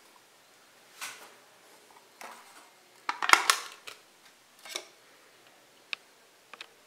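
Foil seal on a Cavendish & Harvey Sour Lemon Drops tin crinkling and tearing as it is peeled back, in several short bursts, the loudest about three seconds in. A few small clicks follow near the end.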